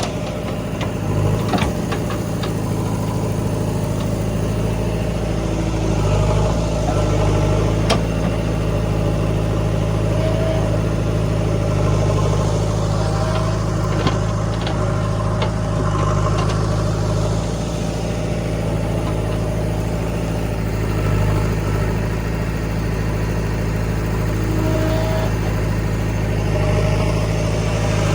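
Diesel engine of a working machine running steadily at low revs, with a few sharp knocks.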